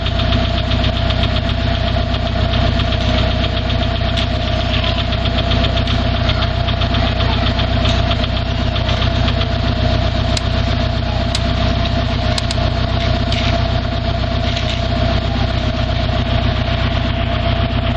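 1996 Subaru Legacy Grand Wagon's flat-four boxer engine idling steadily with a rapid, constant knock: the engine knock the owner is recording as a fault.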